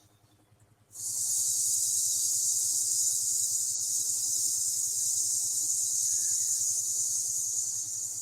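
A long, steady 'sssss' hiss breathed out through the teeth, the qi gong lung healing sound. It starts suddenly about a second in, is held for about seven seconds and eases off near the end.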